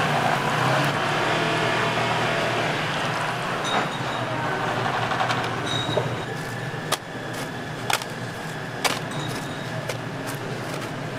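Hot deep-fryer oil sizzling loudly around a wire basket of breaded fried shrimp, easing off after about four seconds. Then come a few sharp metal clanks and clicks from the basket and tongs.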